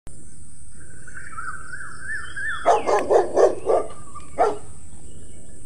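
A bird chirping in a quick repeated trill, then a dog barking: a fast run of five barks and one more a moment later, over a steady high hiss.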